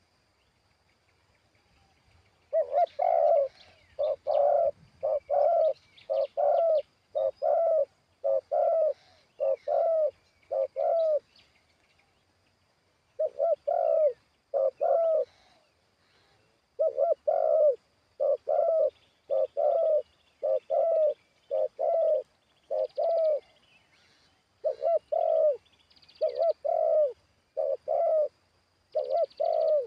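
Spotted dove cooing: a long run of low, evenly repeated coos, about one or two a second, starting a couple of seconds in and broken by a few short pauses. Faint chirps of other small birds sound higher up.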